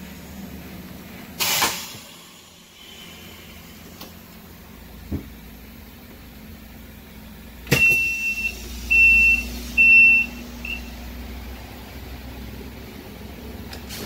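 Cab of a Scania K320IA articulated bus with the engine idling low. A short hiss comes about a second and a half in; later a dashboard switch clicks and a high warning beeper sounds three times, then once more briefly.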